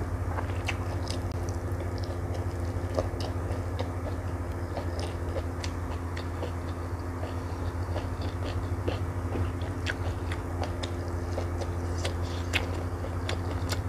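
Close-miked eating sounds: chewing with many small wet clicks and smacks at irregular moments, from mouthfuls of stir-fried water spinach with omelette and rice. A steady low hum runs underneath.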